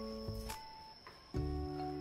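Background music: held chords of sustained notes, changing with a fresh attack every second or so.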